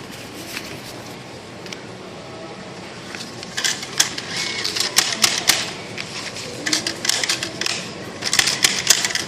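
JR East ticket vending machine's inner mechanism clattering as it handles the payment and issues the ticket, in four quick bursts of sharp clicks starting about three and a half seconds in.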